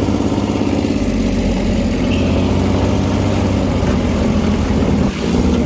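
Off-road buggy engine running steadily while driving, with a brief dip in engine sound about five seconds in.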